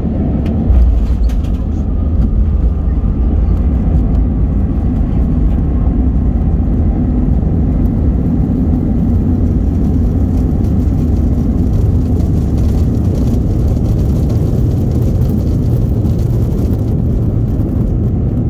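Airliner cabin noise while the plane rolls along the runway: a steady, loud low rumble of engines and wheels, with one sharp jolt about a second in.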